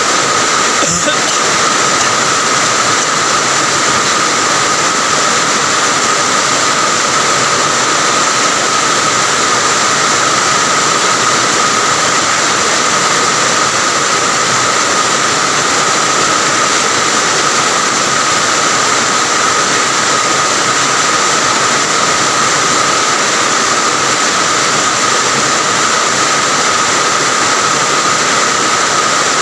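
Heavy rain falling steadily: a loud, dense, even hiss with a steady thin tone running through it.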